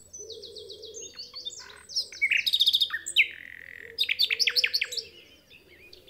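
Common nightingale singing: a run of repeated high whistled notes, then a fast loud trill and a held lower note, then a quick burst of loud repeated notes, going quiet near the end.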